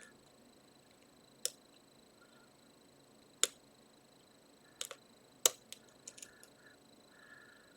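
Lock pick and tension tool working the Christmas-tree and tapered pins of an Abus GDS lock: scattered sharp metal clicks, loudest about three and a half and five and a half seconds in, with a quick run of smaller clicks just after.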